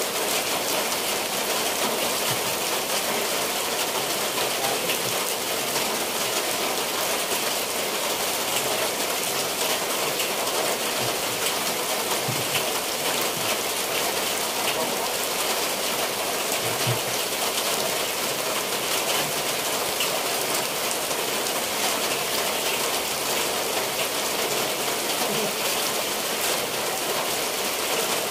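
Steady rain falling on clay-tiled roofs and the wet ground, an even unbroken hiss of rain with no let-up.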